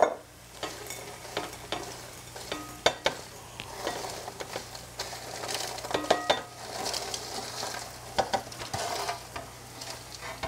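Dry toasted bread pieces scraped with a fork off a metal baking sheet and tumbling into a glass bowl: a crackly rustle with many small clicks and taps of the fork and crumbs on metal and glass.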